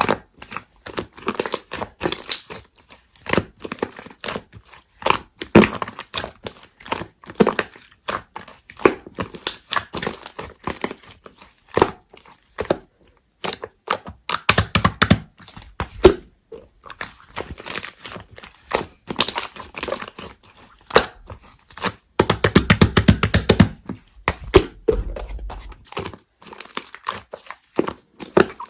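Slime being squeezed, poked and stretched by hand, giving irregular crisp crackles and popping clicks. About two-thirds of the way through there is a dense, rapid run of crackling with a low rumble under it.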